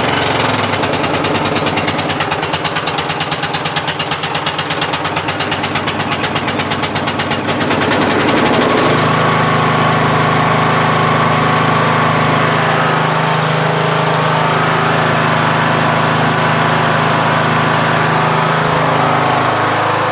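The 20 hp Briggs & Stratton single-cylinder overhead-valve engine of an MTD Yard Machines lawn tractor running just after starting, first with a fast, even beat, then about nine seconds in changing to a steadier, fuller note. It keeps running without stalling after a valve lash adjustment meant to cure stalling off choke, and runs pretty good.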